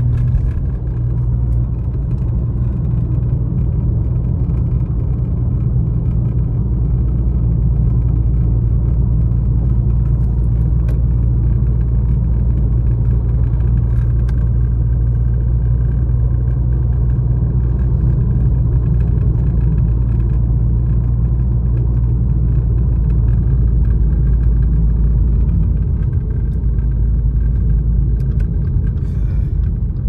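A car being driven at a steady pace, heard from inside: a steady low rumble of engine and road noise.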